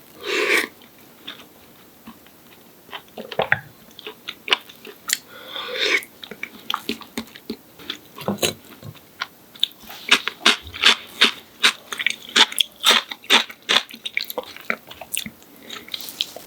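Close-up chewing and crisp crunching of a breaded, deep-fried pork cutlet (donkatsu). The crunches are scattered at first and come thick and fast, several a second, through the second half.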